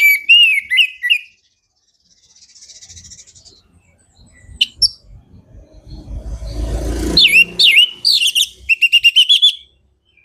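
Orange-headed thrush singing loud phrases of sweeping whistled notes, ending in a quick run of repeated notes near the end. A short low rumbling noise comes just before the last phrase.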